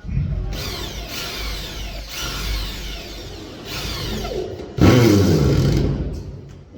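Power drill or screw gun running in four short bursts, its pitch falling as each winds down; the last burst, about five seconds in, is the loudest.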